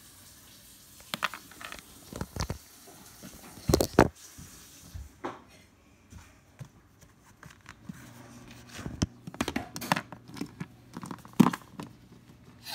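Scattered light taps, clicks and rustles of a phone being handled, a hand moving over and around it, with a few sharper knocks about four seconds in and a busier cluster near the end.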